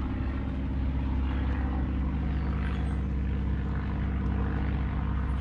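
Vehicle engine running steadily, an even low hum that holds one pitch throughout.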